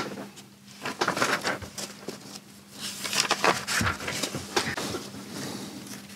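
Sheets of paper rustling and crackling as they are handled, in irregular bursts over a faint low hum.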